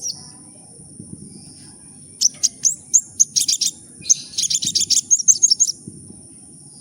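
Kolibri ninja sunbird singing: quick runs of thin, high chirps in two bursts, one about two seconds in and another about four seconds in, with quiet gaps around them. A faint steady high whine runs underneath.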